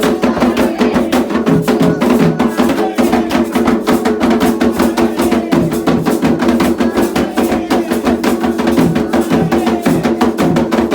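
Candomblé ritual drumming: fast, dense hand-drum strokes with a sharp wood-block-like beat, running unbroken over steady held tones.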